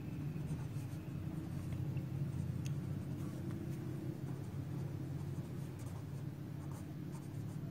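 Felt-tip marker scratching across paper as words are handwritten, over a steady low hum.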